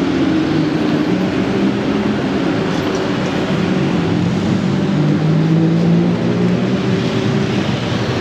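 Busy city-street traffic: motor vehicle engines running close by under a steady wash of road noise, with a low engine hum that slowly drifts in pitch.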